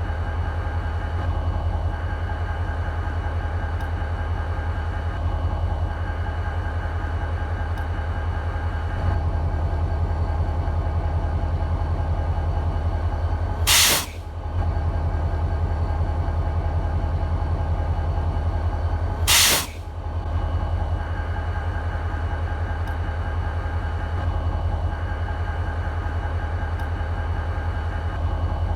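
BNSF SD40-2 locomotive's 16-cylinder, two-stroke EMD 645 diesel idling with a steady low throb. Twice, near the middle and about five seconds apart, a short loud hiss of released air cuts through the idle.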